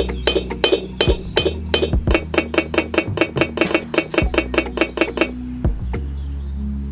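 Rapid, evenly spaced hard clicking, about five a second, over a steady low hum; the clicking stops about five seconds in and the hum goes on.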